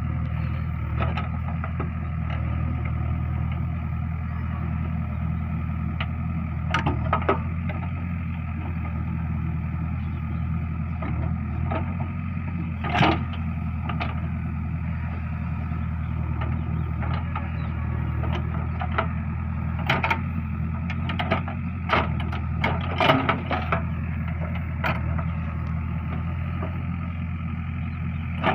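JCB backhoe loader's diesel engine running steadily, with short sharp clanks and knocks scattered through, several of them louder, from the machine at work.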